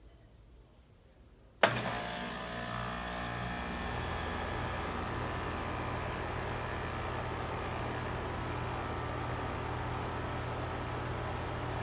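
2013 4-ton Rheem heat pump outdoor unit starting up in cooling mode: about a second and a half in, a sharp clunk as its Copeland scroll compressor kicks on, then a steady running hum as the outdoor fan comes up to speed over the next couple of seconds.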